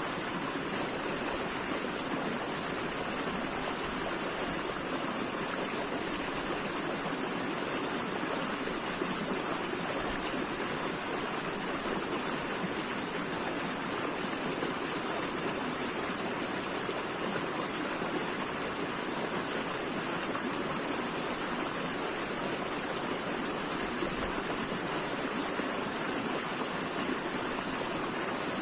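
Running water flowing steadily and unbroken, with a bright hiss on top.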